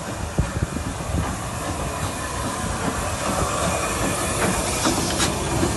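A train running on the rails: wheels clattering irregularly over the track under a steady hiss.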